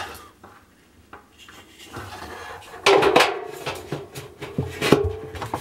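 Replacement plastic drum paddle being pushed and slid into place on a Hotpoint washing machine drum: scraping and clattering against the drum, with a few sharp knocks, the loudest about three seconds in and again near five seconds.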